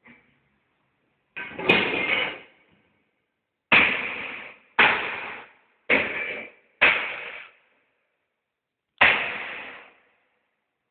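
Six loud blows of work on an opened floor heating grate and its boards, the middle four about a second apart, each dying away with an echo in the church.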